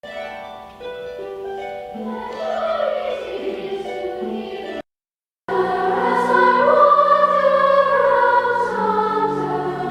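A children's choir singing long, held notes. The singing cuts off for about half a second near the middle, then a second choral passage comes in, louder.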